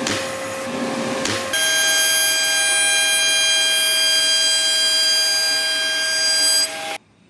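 Makita RT0701C trim router, mounted under a benchtop router table, spinning at full speed: a steady, high-pitched whine that comes in abruptly about a second and a half in and cuts off suddenly near the end. Before it, the motor of a shop dust collector runs with a steady hum and rushing air.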